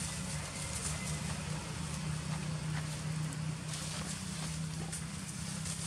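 An engine running steadily nearby: a low, even hum, with a brief hiss about four seconds in.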